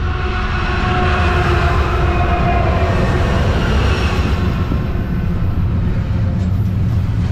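Diesel freight locomotives passing close by, their engine tones strongest in the first few seconds and fading away. Double-stack container cars then roll past with a steady, heavy rumble.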